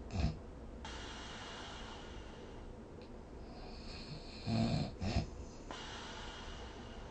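A person snoring in sleep: a short snort just after the start, then breathy hiss, then two loud snores in quick succession about four and a half seconds in.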